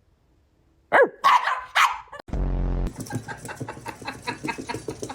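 Chihuahua yapping: a few sharp barks falling in pitch about a second in, then a run of rapid, rhythmic yips, about four to five a second, that sound almost like clucking. A short, loud, low buzz comes between them.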